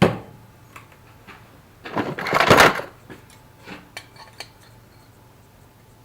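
Pieces of metal knocking and clattering: a sharp clank at the start, a louder rattle about two seconds in, then a few light clinks.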